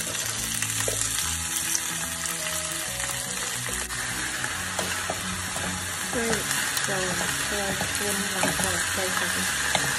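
Chopped yu choy sizzling as it fries in hot oil with ginger and garlic in a frying pan, with a steady hiss. In the second half a wooden spatula stirs and turns the greens.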